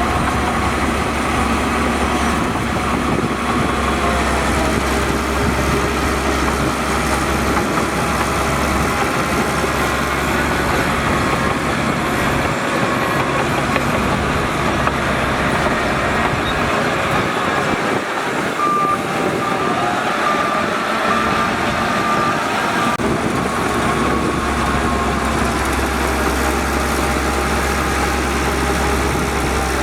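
Shantui DH17C2 bulldozer's diesel engine running steadily under load at a dirt fill, its pitch rising and falling slowly. A reversing alarm beeps for a few seconds a little past the middle.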